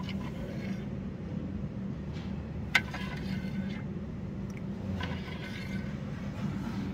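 A metal spoon clinks sharply once against a ceramic bowl or tray about three seconds in, with a few fainter clinks and scrapes over a steady low hum.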